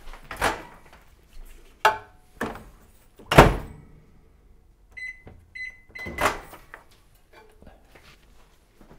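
Microwave oven being worked: its door shuts with a loud thunk, two short electronic keypad beeps follow about five seconds in, and then the door clunks open again. Softer knocks and handling sounds come in between.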